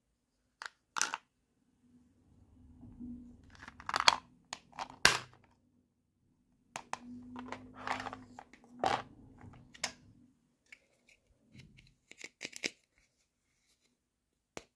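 Small hard-plastic toy pieces being handled and set down: sharp plastic clicks and taps with rustling between, in two spells of handling, then a few light clicks near the end.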